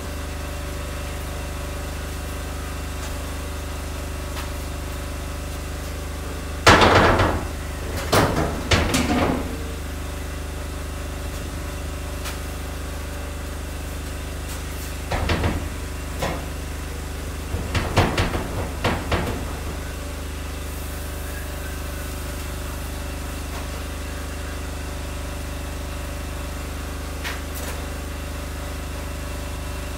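Steel window frame clattering and knocking against the cut edges of an opening in a corrugated steel container wall as it is offered up for fit, in a few short bursts, over the steady hum of a running generator.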